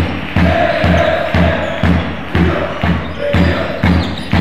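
Background music with a steady kick-drum beat, about two beats a second, under a held synth-like tone.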